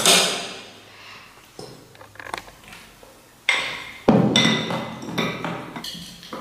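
Porcelain noodle bowls and a ceramic spoon clinking and knocking against each other and the table. There are several sharp clinks, some with a short ringing tone, the loudest right at the start and about four seconds in.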